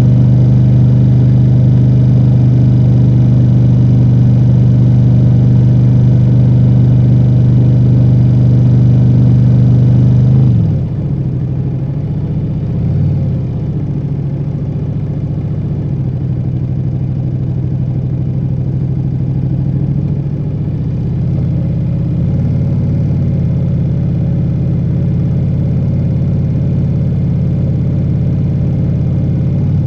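Ducati Multistrada V4 Rally's V4 engine through its stock exhaust, running at a steady pitch under way. About ten seconds in the revs drop sharply and it runs on lower and quieter, with slight rises and falls.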